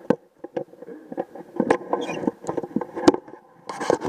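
Garden cart rolling fast downhill over bumpy, leaf-covered ground: irregular knocks and rattles from the cart's frame and wheels, getting denser near the end.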